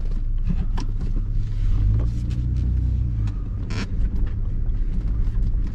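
A Toyota 4x4's engine running, heard from inside the cab as a steady low rumble that swells for about a second, two seconds in. A few short clicks are heard over it.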